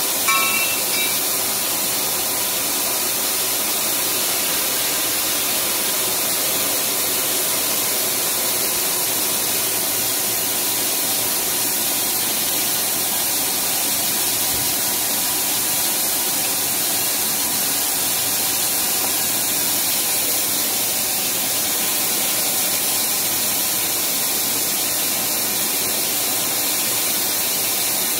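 Bodor fiber laser tube cutter cutting a 10 mm stainless steel tube: a steady, loud hiss of the cutting head's gas jet blowing through the cut. A brief burst with a short tone sounds about half a second in.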